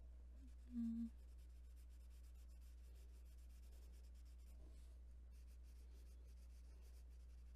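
Faint scratchy strokes of a watercolor crayon shading across coloring-book paper, with a short hum about a second in.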